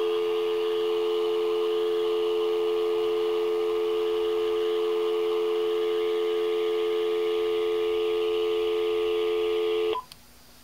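Telephone dial tone on a magicJack Plus line, heard through a Uniden cordless handset. It is a steady two-pitch tone with a hiss over it, cut off about ten seconds in with a short beep. The hiss is the line noise that the owner blames on an aged, heat-worn 100 µF capacitor in the magicJack Plus.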